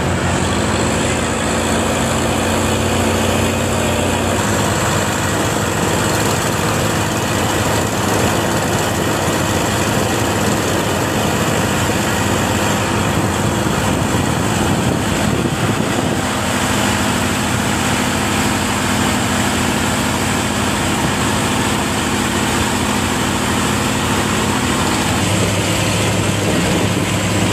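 Motor fishing boat's engine running steadily, its note stepping up and down a few times.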